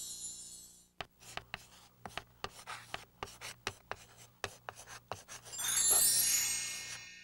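Chalk scratching and tapping on a chalkboard as words are written, a quick run of scratchy strokes and taps. About five and a half seconds in, a bright shimmering sparkle effect rises and fades, after the tail of a music sting has faded out in the first second.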